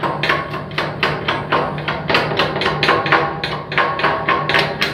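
Chipping hammer striking slag off a freshly laid vertical weld on a steel H-beam, rapid even strikes about five a second, each with a short metallic ring: the weld being cleaned after welding.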